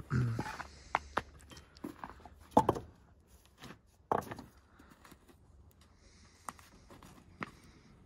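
Footsteps on snow with a handful of knocks and clunks as a cinder block and the wooden plank gate are handled; the loudest clunks come about two and a half seconds in and just after four seconds.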